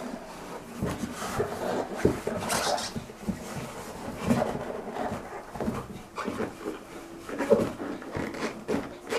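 Rubber Century wellington boots, worn turned down, shuffling and scuffing on a tiled floor, the rubber rubbing against rubber and tile with irregular small knocks.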